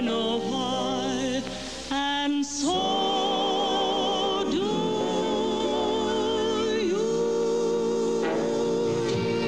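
Background music: a slow melody of long held notes with wide vibrato, with a short dip in level about two seconds in.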